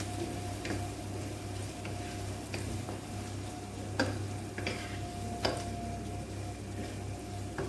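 Food sizzling as it fries in a pan, with a utensil clicking against the pan about seven times as it is stirred.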